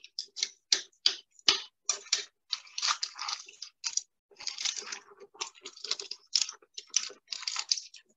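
Metal tongs clicking and clacking against a stainless stockpot and the boiled crab legs and shrimp inside as the seafood is turned: a quick, irregular run of light clicks and rattling shells.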